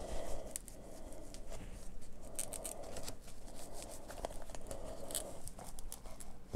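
Faint scratching and rustling of a full-face CPAP mask's fabric headgear straps and Velcro tabs being pulled and adjusted by hand, with scattered small clicks.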